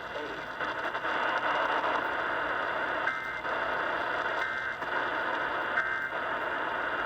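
Emergency Alert System SAME data tones: three short two-tone warbling bursts about a second and a half apart, the brief length typical of the end-of-message signal, over a steady hiss of radio static.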